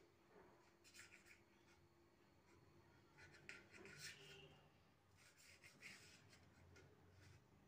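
Near silence with faint scraping in a few short bouts as a knife saws through a sandwich of sliced bread on a steel plate.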